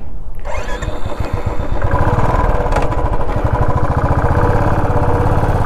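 Royal Enfield 350 single-cylinder motorcycle engine picks up about half a second in, then pulls under load with a strong, even beat as it climbs a steep, rough dirt track.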